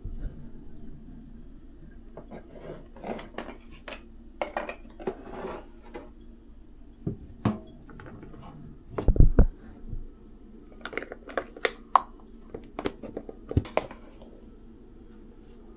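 Kitchen items handled on a countertop: scattered clicks, knocks and light clatter of plastic containers and coffee-maker parts being picked up, opened and set down. A heavier cluster of thumps comes about nine seconds in, and a quick run of sharp clicks follows.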